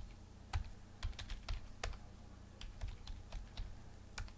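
Typing on a computer keyboard: irregular key clicks, a few a second, over a faint low hum.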